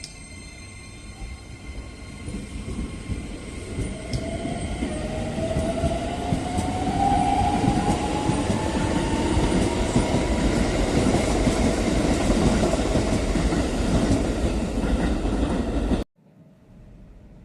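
Train passing close by on the rails: the rumble of wheels and running gear builds up over several seconds and holds loud, with a whine that rises in pitch partway through. The sound cuts off suddenly near the end.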